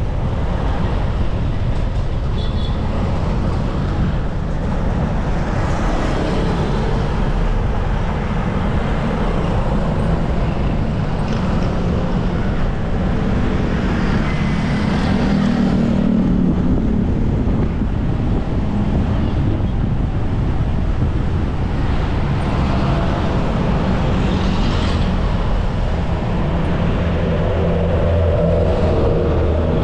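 Motor traffic running past on the road beside a downhill mountain bike, over steady wind noise on the action camera's microphone. A vehicle's engine swells around the middle and again near the end.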